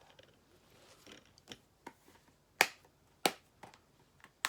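A handful of sharp plastic clicks and snaps, the loudest a little past halfway, from a DVD case and its disc being handled.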